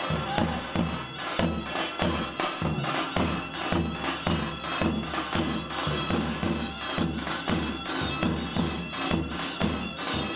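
Davul and zurna playing an Erzurum bar dance tune: a zurna melody over a steady davul beat.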